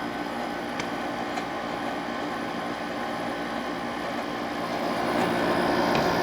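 Older Kenmore 5000 BTU window air conditioner, built like a Goldstar with an LG fan motor and a Hero compressor, running: a steady rushing noise with a few steady tones, growing somewhat louder near the end.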